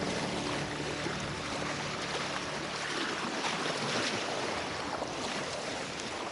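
Steady rush of sea water and wind while under way on a sailboat at sea, as the last notes of a music track fade out in the first second.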